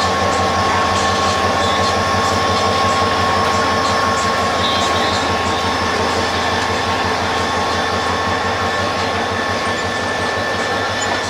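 Diesel locomotive train running steadily: a continuous engine drone and rail rumble with steady whining tones, easing slightly toward the end.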